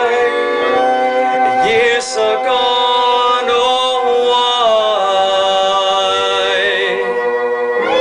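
Song: a man's voice holds long notes without words, moving slowly from one pitch to the next, among other held musical notes.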